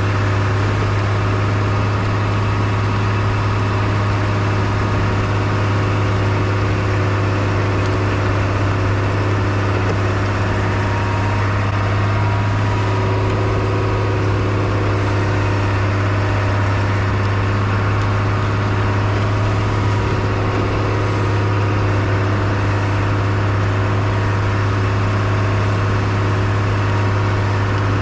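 Engine of a 1998 Bombardier BR-160 snowcat running at a steady, unchanging pitch with a strong low drone as the machine pushes snow with its front blade.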